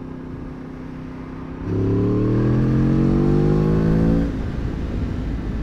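Sport motorcycle engine running at a steady cruise, then opened up hard about two seconds in: the engine note rises steadily in pitch for a couple of seconds under full throttle, then drops back as the throttle is rolled off.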